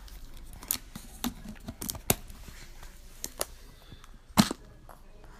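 Scattered light clicks and taps of things being handled, with one louder knock about four and a half seconds in.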